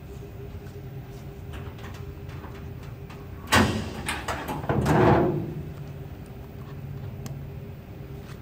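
Hood of a 1956 Chevrolet pickup being opened: a sharp clack of the hood latch releasing about three and a half seconds in, then a rougher, longer noise of the hood swinging up on its spring hinges, loudest about a second later and fading within half a second.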